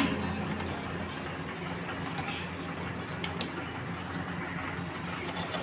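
Steady low hum and hiss of kitchen background noise, with two faint clicks about three seconds in.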